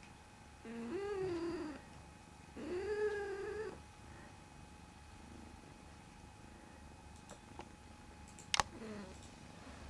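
Domestic cat meowing twice, two drawn-out meows of about a second each, over a low steady purr. Near the end there is a sharp click, then a short falling call.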